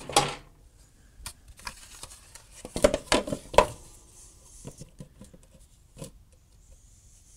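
Plastic belt guard being handled and set down over the pulley on a Cub Cadet lawn tractor's mower deck: scattered light clicks and knocks of plastic on the deck, busiest about three seconds in.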